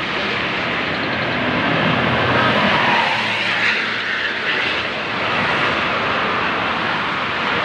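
Toll-road traffic passing close by: a steady rush of tyres and engines that swells as an intercity bus passes, about two to three seconds in.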